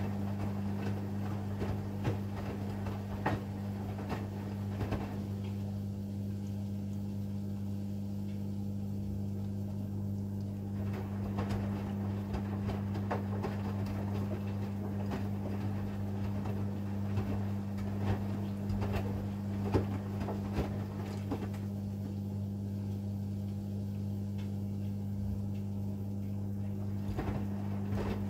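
AEG Lavamat front-loading washing machine in its wash phase: the drum turns the wet load, with swishing and irregular soft knocks, over a steady low hum. Twice the swishing goes quieter for several seconds as the drum rests between turns.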